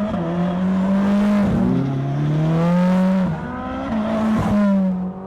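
Ferrari 458 Speciale's naturally aspirated V8 running hard on track; its pitch drops sharply about a second and a half in, then climbs steadily back up, with another smaller step near the end.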